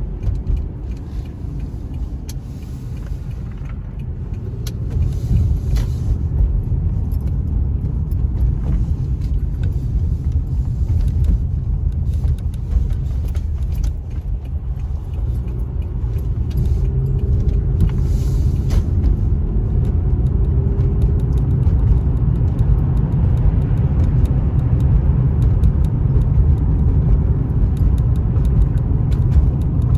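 Road noise inside a moving car's cabin: a steady low rumble that grows louder about four seconds in and again around the middle.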